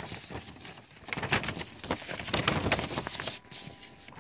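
Paper instruction sheets rustling and crackling as they are handled and shifted, in irregular bursts.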